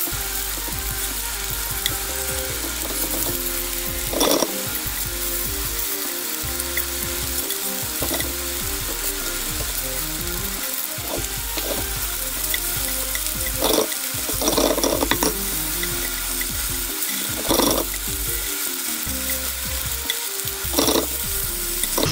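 Thin-sliced pork loin sizzling steadily in a nonstick frying pan over medium heat, being browned partway. Wooden chopsticks scrape and tap against the pan a few times as the slices are turned.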